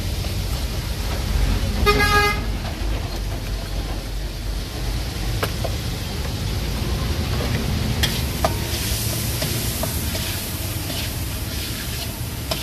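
Steady rumble of street traffic with a short vehicle horn honk about two seconds in. Now and then a metal spatula clinks against a steel wok as sauce is stirred.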